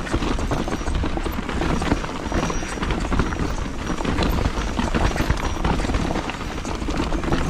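Mountain bike (Ibis HD5) rolling fast down a rocky trail: tyres crunching and thudding over rocks, with a constant rattle of frame and drivetrain as the bike is shaken over the bumps, and wind rumbling on the helmet or chest camera's mic.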